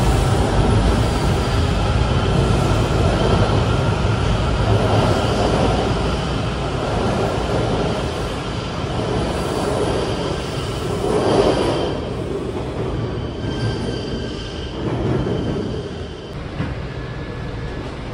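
WMATA 7000-series Metrorail train pulling out of an underground station: a loud rumble of wheels on rail with a steady high whine over it. It swells once about eleven seconds in, then fades as the train goes into the tunnel.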